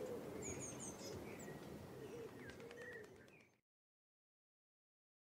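Faint bird ambience: low curved calls and short high chirps over a light background hiss, fading and then cutting to silence about three and a half seconds in.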